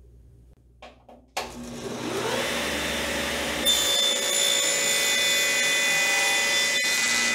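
Table saw switched on about a second and a half in, its motor whining up to speed and then running steadily. A board is crosscut on the miter gauge from about four seconds in, which makes the sound louder and adds a higher whine.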